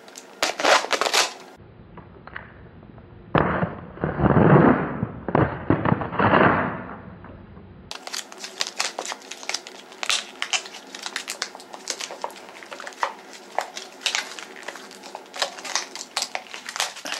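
Plastic packaging being cut and pulled open, crinkling and crackling in many quick irregular clicks. Around the middle there are a few louder rushes of noise.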